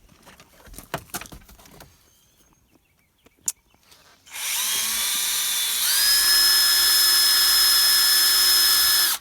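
Power drill with a 9/64 bit drilling a hole in a truck's A-pillar, after a few light handling clicks. The drill starts about four seconds in, speeds up to a steady whine around six seconds, and stops abruptly near the end.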